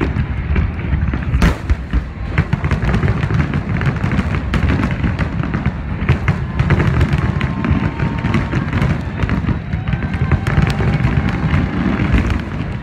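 Aerial fireworks in a finale barrage: rapid sharp cracks and bursts, one after another with no pause, over a continuous low rumble.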